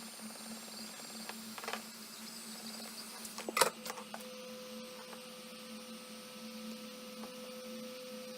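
Heat gun running steadily with a motor hum and rushing air, warming the screen adhesive. A few sharp clicks of handling come about three and a half seconds in, and a thin, higher whine joins about a second later.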